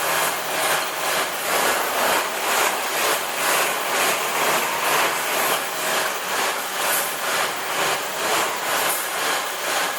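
Industrial tire-shredding machinery running, giving a dense grinding noise that pulses regularly about twice a second.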